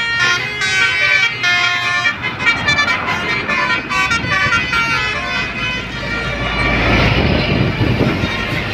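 Bus 'telolet' basuri musical horn playing a tune of short stepped notes, followed by a large bus's engine and tyres passing close by, loudest about seven seconds in.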